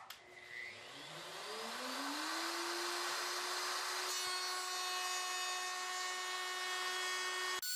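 Plunge router with a flush-trim bit switched on: its motor winds up to speed over the first two seconds or so with a rising whine, then runs at a steady high pitch.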